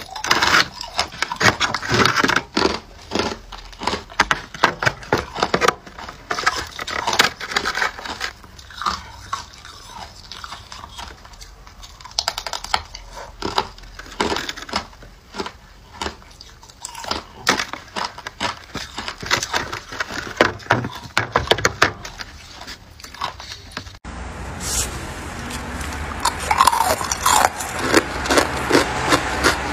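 Hard ice being bitten and crunched between the teeth: a fast, irregular run of sharp cracks and crunches. In the last few seconds a steady hiss comes in beneath the crunching.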